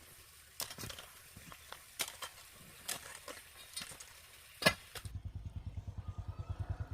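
Scattered knocks and clicks. About five seconds in, a small motorbike engine sets in, running with a rapid, even pulsing.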